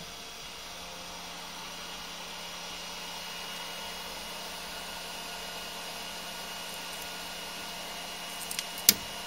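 Flashforge Adventurer 5M Pro 3D printer's fans running steadily after a finished print, an even hiss with faint steady tones. A couple of sharp clicks near the end.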